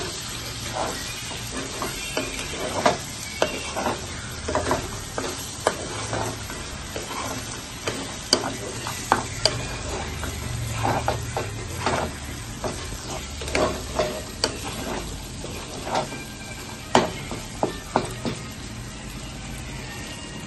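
Fish and onion frying in oil in a kadai, sizzling steadily, while a metal spoon stirs and scrapes through it, knocking against the pan at irregular moments, often once or twice a second.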